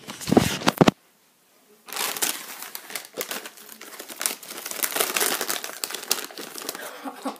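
Crinkling and crackling as potato chips and their packaging are handled, in a dense run of small crackles. The sound cuts out completely for about a second shortly after the start.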